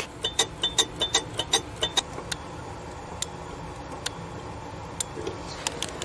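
A quick run of light ticks, about five a second with a faint high tone, for the first two seconds, then a few scattered ticks over a steady low hum.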